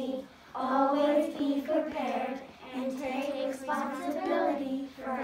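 Three young girls reciting a school pledge together in unison, in several short phrases with brief pauses between.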